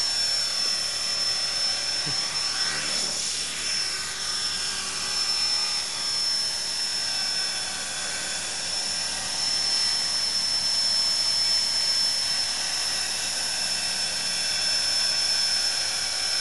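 E-flite Blade 400 electric RC helicopter hovering: a steady high-pitched motor and gear whine over the rotor noise, the sound shifting briefly as it drifts about two to four seconds in.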